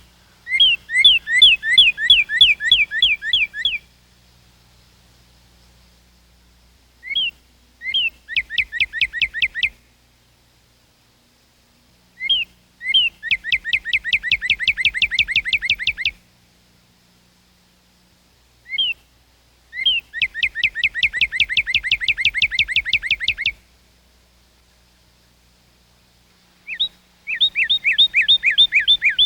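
A songbird singing the same song five times, with pauses of a few seconds between songs. Each song opens with one or two separate slurred notes, then a quick run of many repeated slurred notes lasting two to four seconds. The last song is cut off mid-run.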